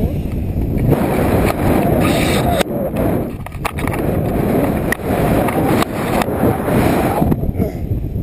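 Wind buffeting an action camera's microphone in paraglider flight: a loud, uneven rumble that surges and eases, with a few brief knocks.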